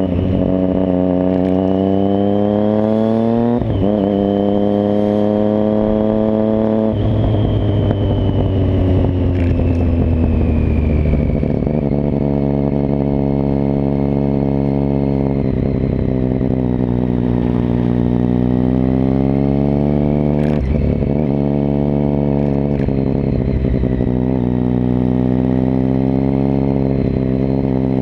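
Motorcycle engine running under way, its pitch climbing as it accelerates and dropping at each gear change several times, heard from close on the bike.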